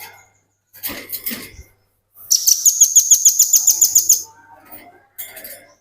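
Velvet-fronted nuthatch calling: a few short, sharp high chips, then about two seconds in a fast, rattling trill of some sixteen high notes, about eight a second, the rapid run-on calling bird keepers call 'ngebren'.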